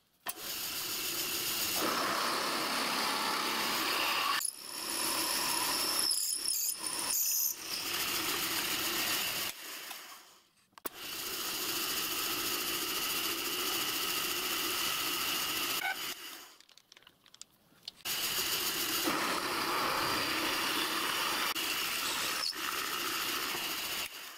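Drilling machine running a twist drill through a metal plate: a steady cutting grind, in four passes broken by short gaps. A high squeal from the bit comes in briefly about a quarter of the way in.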